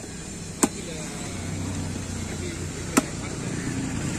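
A large curved knife chopping stingray meat on a wooden chopping block: one sharp chop at the start, another about half a second later and a third about three seconds in. Between the chops there is a steady background of traffic that grows louder.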